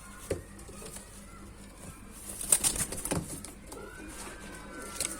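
Domestic pigeons cooing in a loft, with a few sharp knocks and some wing flapping.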